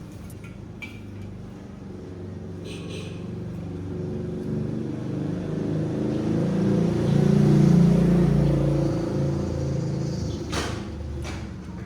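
A motor vehicle's engine passing by: a low rumble that builds to its loudest about two-thirds of the way through and then fades, with a few faint clicks.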